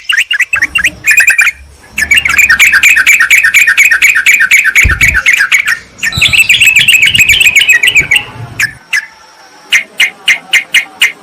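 Yellow-vented bulbuls calling in fast, noisy chattering bouts of rapidly repeated notes, two long runs followed after a short pause by a string of single sharp chips near the end.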